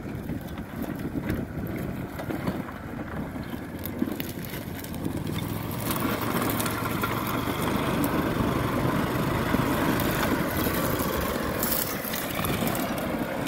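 Small engine of a Max Buffalo 6x6 amphibious ATV running as it drives over rocky ground through brush, with stones crackling under its tyres. It grows louder from about halfway through as it comes close past the camera, then falls off near the end.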